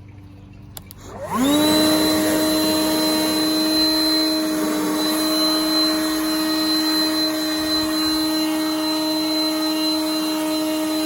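Worx electric leaf blower switched on about a second in: its motor spins up with a rising whine and then runs at a steady, high-pitched whine.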